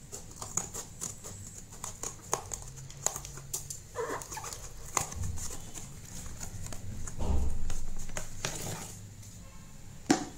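Steel scissors snipping and crunching through a cardboard shipping box, a run of sharp clicks. Then cardboard flaps rustle and scrape, loudest as the phone's paperboard retail box is pulled out, and a sharp tap near the end as it is set down.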